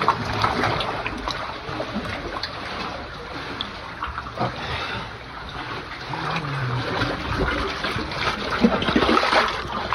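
Sea water splashing and sloshing around swimmers in snorkel gear as they kick and paddle, with the louder splashes near the end.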